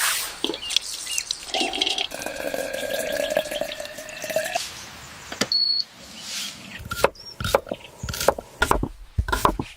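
Water running or pouring for a few seconds, followed by a series of sharp knocks and clatters.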